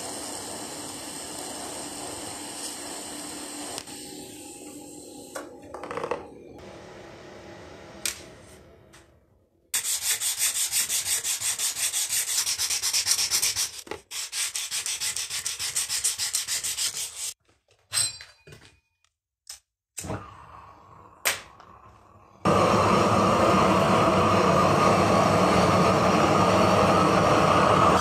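TIG welding arc on steel: a steady hiss with a faint buzz for the first few seconds. Then rapid, even rubbing strokes of the steel knife blade being sanded by hand. From about 22 seconds in, the loud, steady rush of a large gas torch burning.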